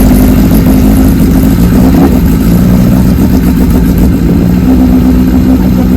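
1978 Kawasaki KZ1000's air-cooled inline-four engine, with a Kerker header, running loud and steady just after being started: the first run after its restoration and a long time in storage.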